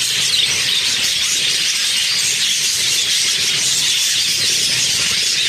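Budgerigars chattering, a steady dense mix of high chirps, squeaks and warbles.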